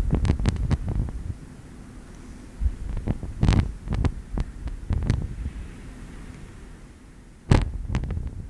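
Wind whip Foley effect: quick flapping snaps with low thumps, coming in three gusts, a rapid string of them at the start, a longer run in the middle, and a short burst near the end.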